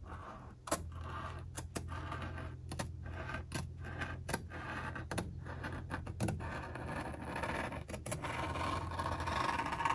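Scissors cutting across a sheet of rubbery non-slip drawer liner in long strokes: a continuous scraping, rasping sound with a sharp click roughly once a second. The rasp grows a little louder near the end as the cut is finished, over a low steady hum.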